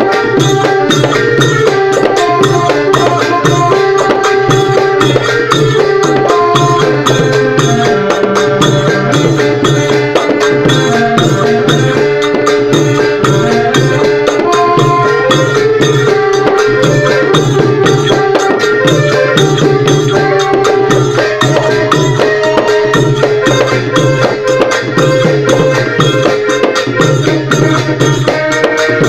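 Thai klong yao long-drum band playing: fast, steady drumming under a held melody line.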